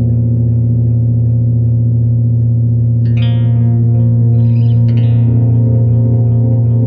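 Electric guitar, a Gretsch Pro Jet, played through an Old Blood Noise Endeavors Black Fountain oil-can delay pedal into a Fender Princeton Chorus amp: a low note rings on warm and dark, with new notes picked about three seconds in and again about five seconds in.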